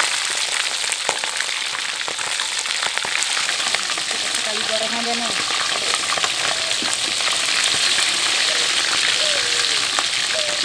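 Chicken pieces, simmered in spice broth and drained beforehand so the frying spatters less, deep-frying in hot oil in a wok: a steady sizzle thick with fine crackling.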